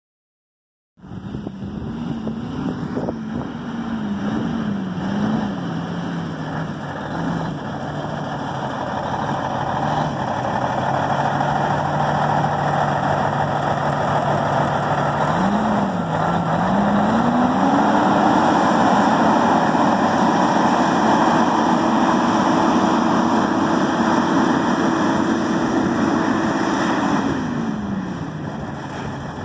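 Cummins N14 14-litre inline-six diesel in a 2001 International 9400i semi truck running. It starts with a few quick throttle blips, settles to a steady idle, then is revved up and held at a higher speed for about ten seconds before dropping back to idle near the end.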